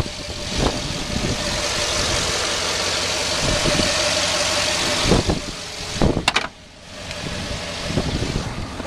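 The 6.2-litre Vortec V8 of a 2011 GMC Yukon Denali idling steadily, heard with the hood open, with a few sharp clunks about five to six seconds in.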